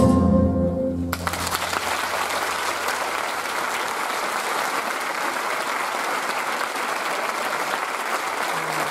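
The music ends on a fading chord, and about a second in the audience breaks into steady applause that carries on.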